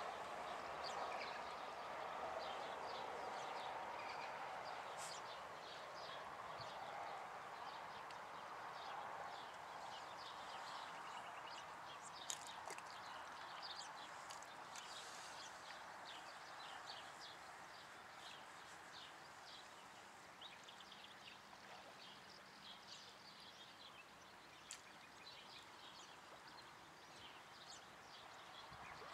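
Small birds chirping faintly, many short high calls at irregular times, over a steady background hiss that slowly fades.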